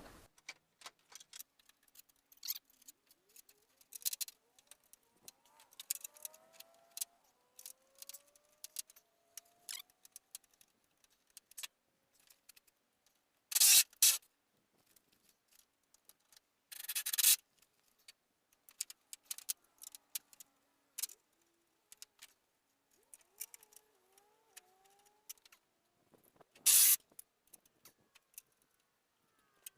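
Three short loud bursts from an impact wrench driving bumper bolts, between scattered clicks and clanks of tools and metal parts and a few squeaky metal-on-metal rubs. The bolts are hard to line up and seem cross-threaded.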